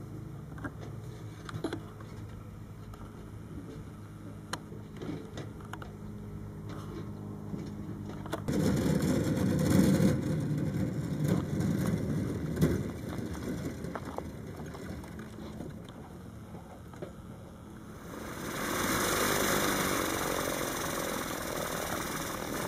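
Electric motor and propeller of the MC30E Luciole single-seat electric light aircraft running: a steady low propeller hum that turns louder and rougher about eight seconds in, then fades, with a broad hiss near the end.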